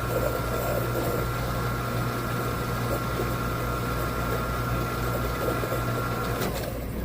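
Small electric motor running with a steady hum and a thin high whine, switching off with a click about six and a half seconds in as the whine falls away.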